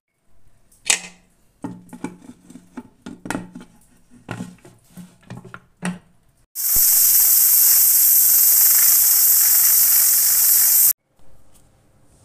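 Pressure cooker lid being closed and its whistle weight set, with metal clicks and knocks. About six and a half seconds in, a loud, steady hiss of steam venting from the cooker's valve begins, lasts about four seconds and cuts off suddenly.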